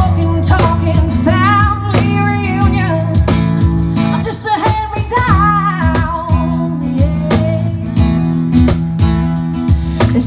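A female singer sings a song live over a band with strummed acoustic guitar, steady low instrument tones and regular drum hits.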